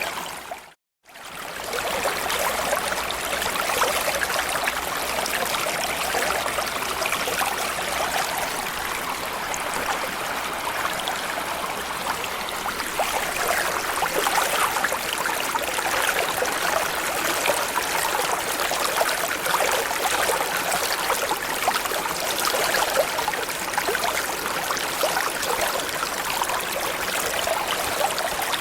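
Small stream or creek flowing steadily over rocks, a continuous rush of water. About a second in, the sound cuts out for a moment, then comes back.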